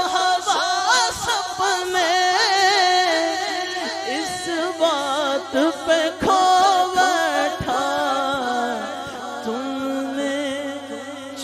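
A man singing a naat into a microphone: long, wavering, ornamented phrases held without break and heard with an added echo effect.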